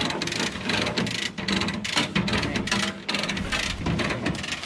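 Ratchet tie-down strap being cranked tight, a run of irregular metal clicks, with the rattle of a load chain.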